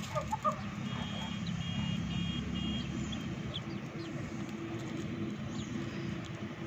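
A chicken gives a few clucks that stop about half a second in, then a steady low mechanical hum carries on, with faint, high, short chirps of small birds above it.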